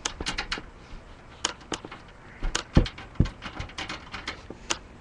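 Light, irregular clicks and taps of small computer-case screws being picked up and handled, with two heavier knocks about halfway through.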